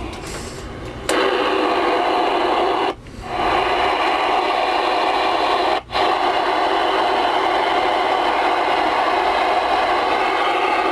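Galaxy DX-979 CB radio's speaker hissing with loud receiver static, cutting out briefly twice.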